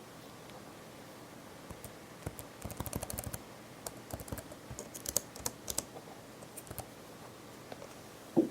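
Keys of an Asus K43SJ laptop keyboard clicking under typing: a quick run of keystrokes about two to three seconds in, then scattered single presses. A louder, deeper thump comes near the end.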